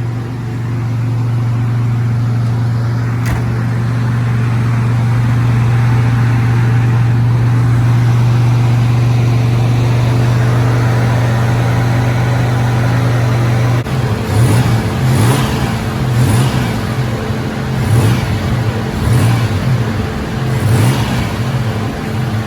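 Turbocharged Nissan Z31's VG V6 engine idling steadily, then revved in a run of about eight quick throttle blips roughly a second apart, starting about fourteen seconds in. The engine is being worked on for a lean condition that appears whenever the throttle is opened.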